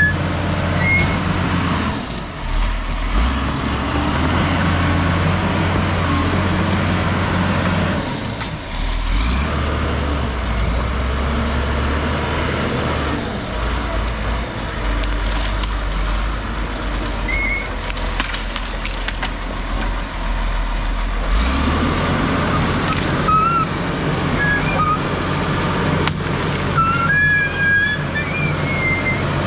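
Case crawler dozer's diesel engine running under load as the blade pushes dirt, roots and brush, its note shifting several times as the load changes. Short high squeaks come through now and then, most of them near the end.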